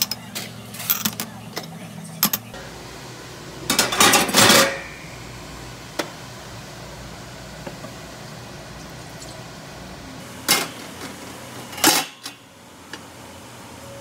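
Glass tumblers and a glass jar clinking against each other and a stainless-steel tray, with a dense clattering burst about four seconds in and two shorter ones near the end, over a steady low hum.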